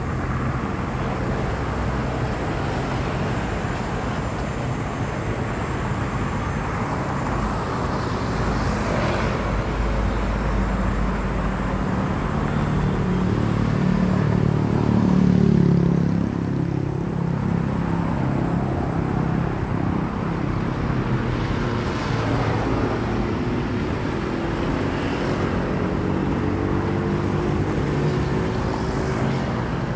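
Road traffic: vehicle engines running and passing, loudest about halfway through, with an engine's pitch slowly rising near the end as it speeds up.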